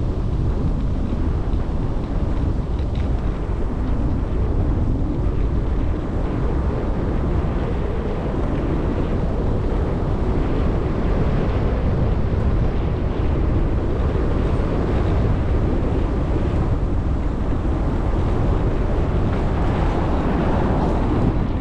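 Steady wind rumble on the microphone of a camera carried on a moving bicycle.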